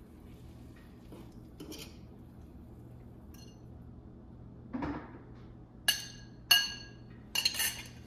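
Kitchen utensils and dishes clinking: a short scrape about five seconds in, then two sharp, ringing clinks and a quick cluster of clinks near the end.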